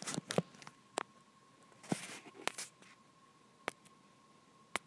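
Quiet room tone with a faint steady high-pitched hum, scattered small clicks, and a brief soft rustle about two seconds in.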